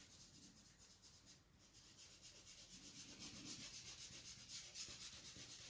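Faint back-and-forth rubbing of a dental cotton roll over soft oil pastel on paper, blending the colours; the strokes grow a little stronger in the second half.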